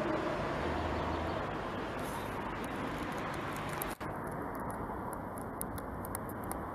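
Steady outdoor background noise with no clear single source, broken by a brief dropout about four seconds in, after which it sounds thinner with faint high ticks.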